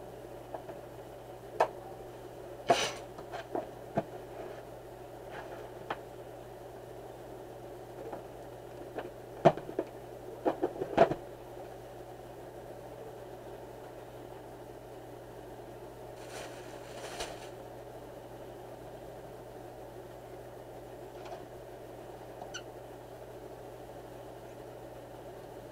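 Cardboard graphics-card box being opened by hand. Scattered clicks and knocks come in two clusters, a few seconds in and again about ten seconds in, followed by a short rustle some seconds later, all over a steady low hum.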